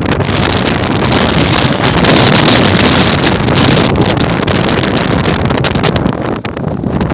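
Strong wind buffeting the microphone: a loud, steady rush with gusty swells and crackles.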